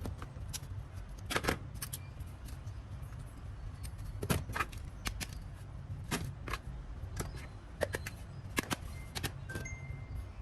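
Irregular sharp clicks and taps of small hard objects being handled, a dozen or so scattered strokes with the loudest near one and a half and four and a half seconds in, over a low steady hum.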